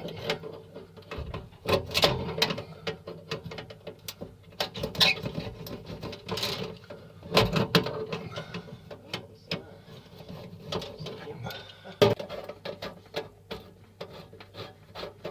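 Oven light's glass cover being twisted back and forth on its tight thread, giving irregular scraping, grinding and clicking as it binds and slips.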